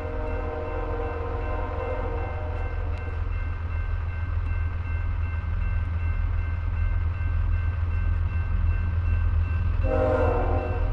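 Diesel freight locomotive of a BNSF grain train approaching a grade crossing, its engine rumble growing louder. Its multi-note horn sounds one long blast over the first three seconds, and another blast starts about ten seconds in.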